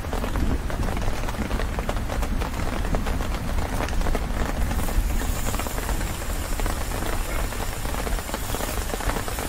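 Heavy rain pattering steadily on the tent roof. About halfway through, slices of meat start to sizzle in a hot frying pan on a portable gas stove.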